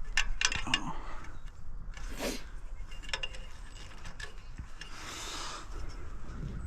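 Scattered metal clicks and clinks from hands working on the parts of a portable bandsaw mill, with two brief rushing noises, one about two seconds in and one around five seconds in.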